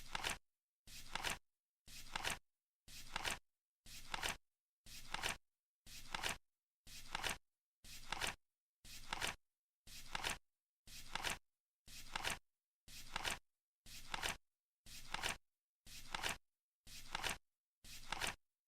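Flip clock sound effect: the seconds card flips over once every second, each flip a short papery flutter that is loudest at its end, with dead silence between flips.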